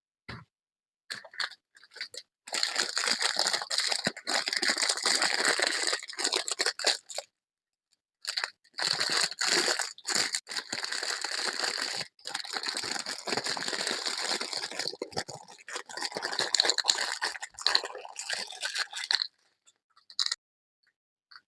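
Packaging being torn open and crinkled by hand: two long runs of crackling and tearing, the first a few seconds long and the second over ten seconds, with a few short clicks and taps around them.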